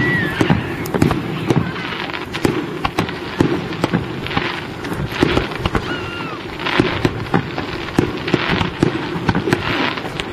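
Aerial fireworks shells going off one after another: repeated sharp bangs and crackle. A few short whistles sound near the start and about six seconds in.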